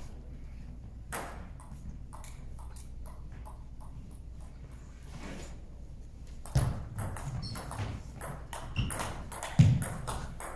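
Table tennis ball clicking on table and paddles: light, scattered ball taps at first, then from about six and a half seconds in a served rally with sharper hits and a few heavy thumps, the loudest near the end.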